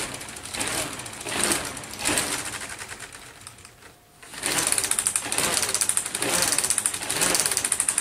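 Plastic K'nex siren rotor set spinning by hand, giving a rapid clicking rattle that swells and fades as it slows, then spun again about four seconds in with a faster, louder rattle.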